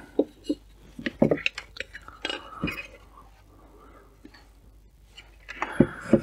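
Scattered light knocks and clinks of small fibreboard satellite speaker cabinets and their parts being handled and set down on a wooden workbench.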